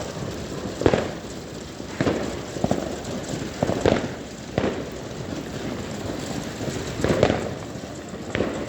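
Fireworks going off: about nine irregular sharp bangs, each with a short echo, over a steady background hiss.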